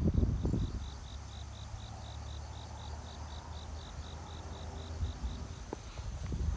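Cricket chirping: a high, even pulse repeating about four times a second, stopping about five seconds in, over a low rumble.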